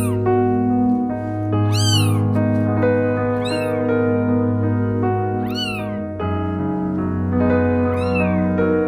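Newborn kitten mewing: high, thin cries that rise and fall in pitch, about five of them roughly every two seconds, over background music of sustained tones.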